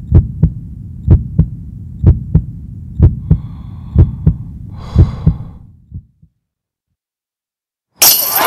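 Heartbeat sound effect: paired low thumps about once a second over a low hum, fading out about six seconds in. A loud burst of noise starts near the end.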